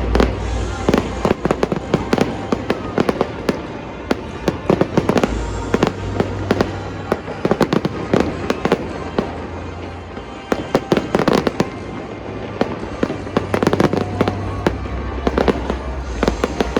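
Fireworks display going off rapidly, with many bangs and crackles a second, over music with low bass notes.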